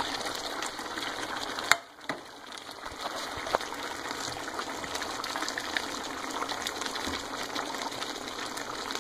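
Pot of chicken curry in coconut cream and water simmering with a steady bubbling hiss, with scattered small knocks and plops as chunks of potato and carrot are dropped in by hand; one sharper click a little under two seconds in.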